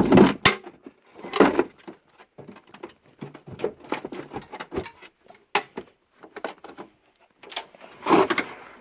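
Snap-on tool chest drawers sliding shut and open. A sliding rush comes at the start, again about a second and a half in, and once more near the end, with a scatter of small clicks and knocks of tools shifting in between.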